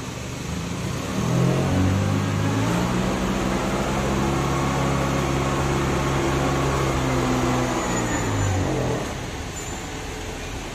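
Mitsubishi forklift's engine revving up about a second in and held at high revs for about eight seconds while the mast hydraulics raise a pallet load of sacks, then dropping back to idle near the end.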